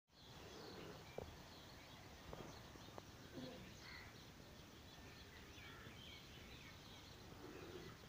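Faint dawn chorus: many small birds chirping and twittering at once over a steady low background noise, with a few soft knocks in the first three seconds.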